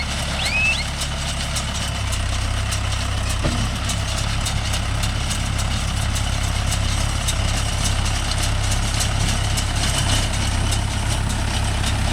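Mahindra Yuvo Tech Plus 585 tractor engine running steadily, its low hum growing a little heavier about two seconds in. A short rising chirp is heard at the very start.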